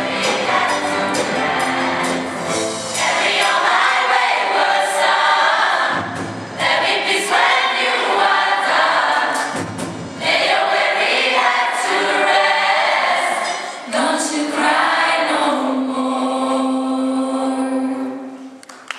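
Large mixed gospel choir of men and women singing in harmony, ending on a long held final chord that fades out shortly before the end.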